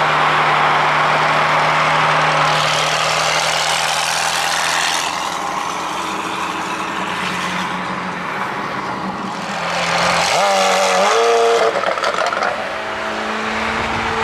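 McLaren 720S's twin-turbo V8 running steadily on the road, then revving up in a quick rising climb about ten seconds in, before settling back to a steady note.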